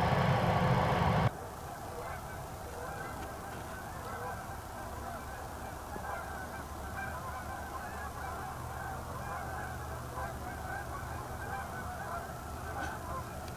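A pickup truck's engine running loudly, cut off abruptly just over a second in. Then a flock of many geese honking continuously, their calls overlapping.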